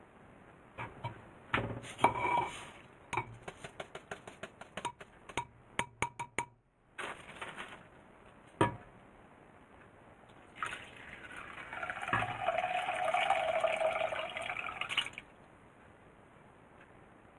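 Seasoning liquid with seafood mix poured from a stainless steel bowl over rice in a cooking pot: a steady pour starting about eleven seconds in, lasting about four seconds and stopping abruptly. Before it, a run of light clicks and clinks as the bowl is handled.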